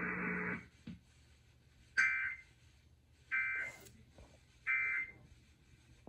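Three short, identical data bursts of two-tone warbling from a radio's speaker, evenly spaced about a second and a half apart: the Emergency Alert System's end-of-message (SAME EOM) codes closing the alert. Before them, the broadcast's background hiss and hum cut off about half a second in.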